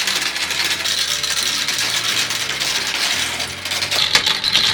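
Gumballs rolling and clattering down a plastic marble run: a dense, continuous run of small clicks and rattles, with a few sharper clicks near the end.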